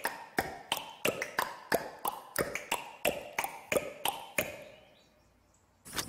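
Cartoon sound effect of a dozen or so evenly spaced taps, about three a second, each with a short ringing ping. They stop after about four and a half seconds, and a sharp knock follows near the end.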